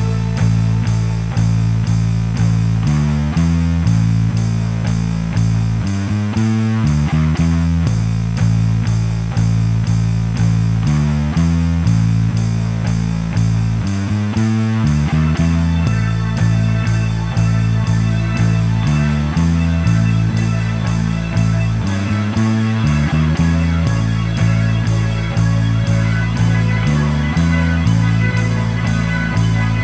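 Background music: guitar-driven rock with a steady beat and a bass line that changes notes in a repeating pattern.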